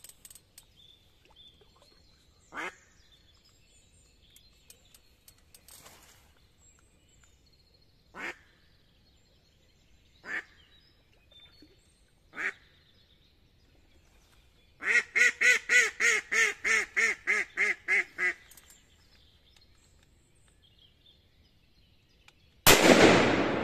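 A live hen decoy duck quacking to call in drakes: four single quacks a couple of seconds apart, then a run of about a dozen quick quacks. Near the end a sudden loud bang with a long echoing tail cuts in.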